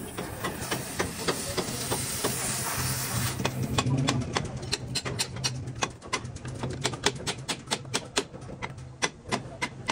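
Metalwork on a truck chassis: a crackling hiss for about the first three and a half seconds, then a run of irregular sharp knocks, with a steady low hum underneath.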